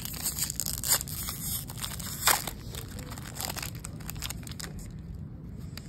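Foil wrapper of a Topps baseball card pack crinkling and tearing as it is opened, in quick sharp crackles. The loudest comes a little past two seconds in, and the crackles thin out over the last couple of seconds.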